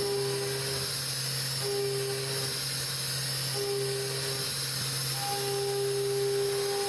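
CNC machine cutting wood with a compression router bit: a steady hiss with a low hum underneath.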